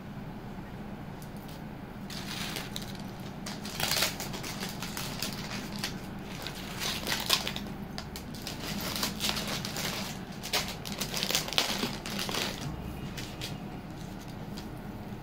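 Crinkling rustles and irregular clicks of jewellery being handled close to the microphone, starting about two seconds in and dying away near the end.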